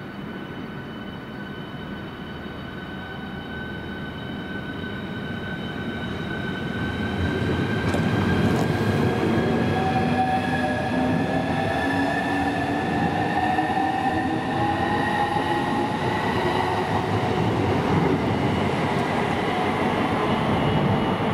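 Southeastern Class 395 electric multiple unit pulling away and picking up speed past the platform. Its traction motors give a whine that rises slowly in pitch over the wheel and rail noise, and the sound grows louder from about six seconds in as the train draws alongside.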